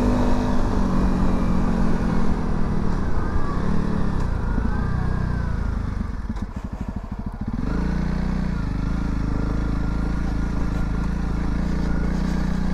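Honda CRF300 Rally's single-cylinder four-stroke engine running on the move, its pitch rising and falling. About six seconds in it drops to a slow, low-revving putter for a second or so, then picks up and runs at a steady note.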